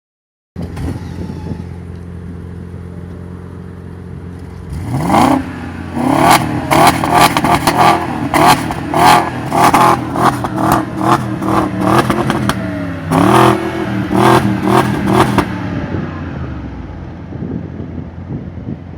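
BMW car engine idling, then revved: one long rising rev about five seconds in, followed by a long run of quick throttle blips, before it settles back to idle near sixteen seconds.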